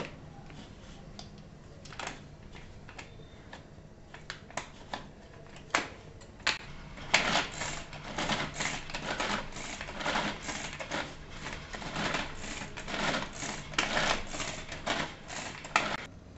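Hand-press food chopper chopping onions: the plunger clacks down in a few scattered presses at first, then in quick repeated presses, about three a second, for most of the second half, stopping just before the end.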